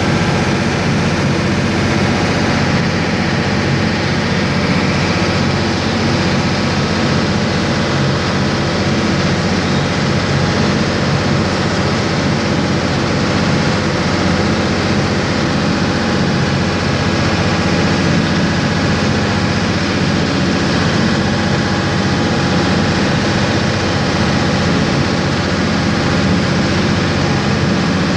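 Ferryboat's diesel engines running steadily underway, an even low hum with no change in pitch, over the rush of the churning wake.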